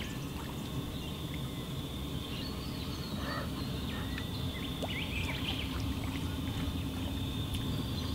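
Outdoor waterside ambience: birds calling now and then over a steady low rumble, with a faint steady high-pitched hum throughout.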